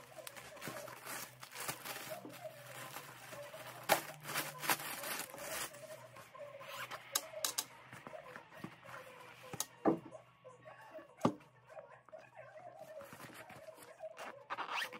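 Plastic mailer bag and packaging rustling and crinkling as a parcel is unpacked by hand, with a few sharp taps and knocks scattered through.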